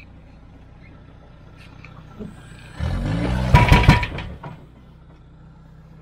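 Sherp 6x6 all-terrain vehicle's diesel engine idling, then revving up about three seconds in for roughly a second and a half as the machine is nudged across on its trailer, then dropping back to idle.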